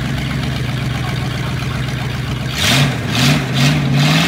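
Third-generation Chevrolet Camaro engine idling steadily, then, a little past halfway, blipped several times in quick succession, each blip a short rise in revs that falls back to idle.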